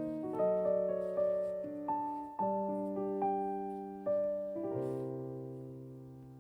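Background piano music: gentle notes and chords, each struck and left to ring, with a last chord held and fading out near the end.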